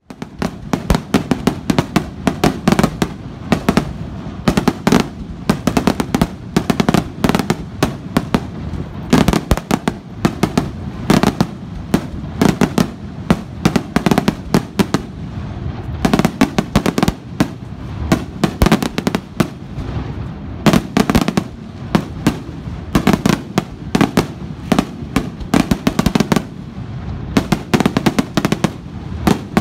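Aerial fireworks display: a dense, continuous barrage of sharp bangs and crackling reports from bursting shells, several a second, over a low rumble that carries between them.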